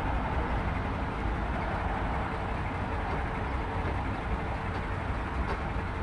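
Steady rumble of vehicle engines and road noise, with a faint steady hum.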